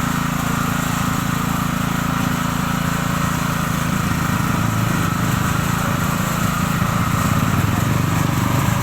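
Small motor cultivator (power tiller) engine running steadily.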